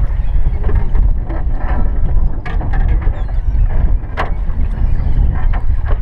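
Steady low rumble of wind and water on the microphone aboard a small aluminum boat, with scattered sharp knocks and clicks from gear being handled in the hull, the loudest about four seconds in.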